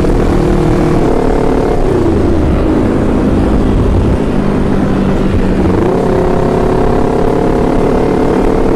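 Motorcycle engine running steadily on the road, over a heavy low rumble of wind and road noise. The engine's pitch dips and comes back up twice, about 2 and 6 seconds in.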